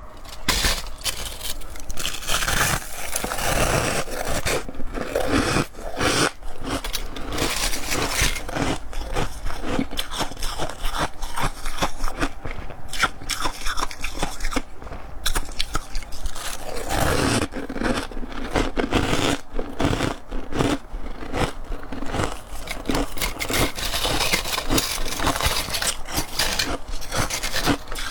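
Crispy, dry ice chunks being bitten and chewed close to the microphone: dense, continuous crunching and crackling.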